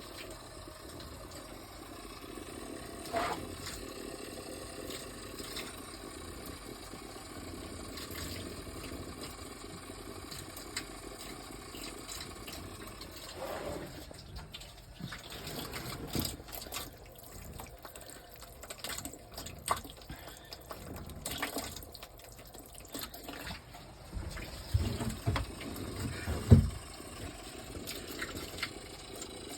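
Water running and spraying from a leaking water heater, steady through the first half. It is followed by irregular knocks and a loud thump near the end.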